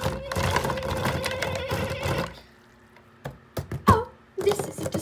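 Water splashing and sloshing in a small toy pool as a hand stirs it, under one long held vocal note; both stop about halfway. A few light knocks follow, and a voice starts near the end.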